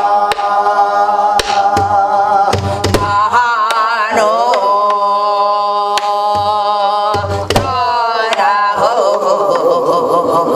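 Korean guum: a woman singing a wordless melody on syllables like "nana-ro tti-tti" in long, wavering held notes that slide up and down between phrases. She accompanies herself with single stick strokes on a buk barrel drum, spaced irregularly.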